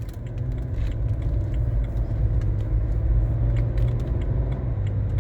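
BMW 335d's 3.0-litre twin-turbo straight-six diesel running under acceleration with a steady drone. With its mass airflow sensor unplugged it pulls with full power, the sign that a faulty mass airflow sensor is behind the EGR excess-flow power loss.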